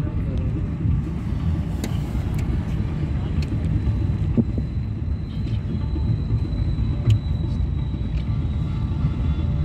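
Steady low rumble of road and engine noise heard from inside a moving car, with a few faint clicks.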